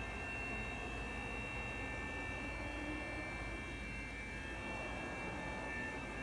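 Anderson Maxxis 3116 NC 5-axis CNC router running, its 15 HP spindle giving a steady high whine over a low, even machinery hum.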